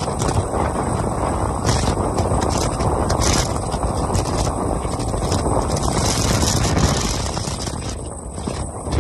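Yamaha R15 V3 motorcycle at highway speed: its single-cylinder engine and wind rushing over the microphone make a steady, dense din. It dips briefly near the end.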